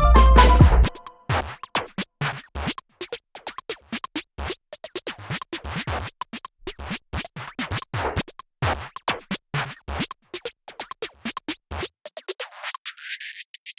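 Background electronic music in a sparse break: about a second in, the full beat drops out, leaving irregular clicky, scratch-like stutters. Near the end the low end is swept away as if by a filter.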